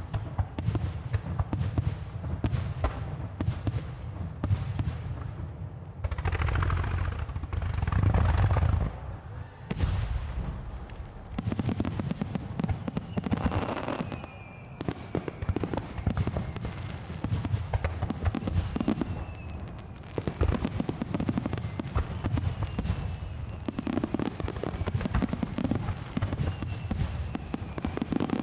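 Aerial fireworks bursting in quick succession: sharp bangs and crackle over a deep booming rumble, with a few faint falling whistles.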